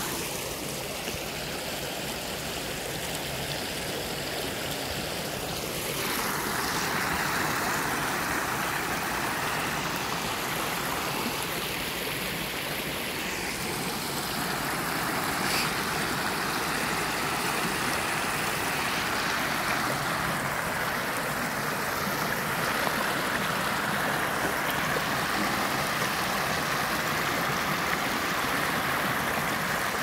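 Water pouring over a small weir and rocks into a pool: a steady rushing, splashing sound that grows louder about six seconds in.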